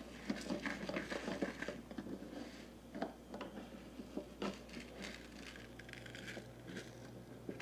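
Scattered light clicks, taps and small scrapes of plastic toy cookware: a spoon stirring rice in a small plastic pot.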